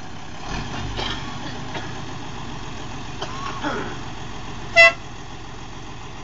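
A vehicle horn gives one short, loud toot about five seconds in, over the steady running of the jitney's engine.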